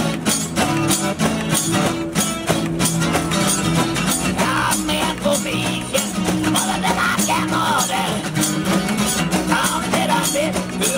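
One-man street band playing a tune: a guitar over a steady percussion beat with a jingling, rattling shimmer, and a melody line weaving above.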